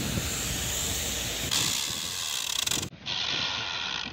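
Compressed air hissing from an air-powered crawler rock drill rig as its control levers are worked. The hiss grows stronger about one and a half seconds in, breaks off abruptly near three seconds, then starts again.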